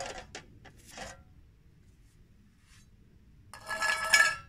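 Metal filling knife scraping body filler onto a mixing board: a few short scrapes and light taps in the first second, then a longer, harsh scrape about three and a half seconds in, the loudest sound.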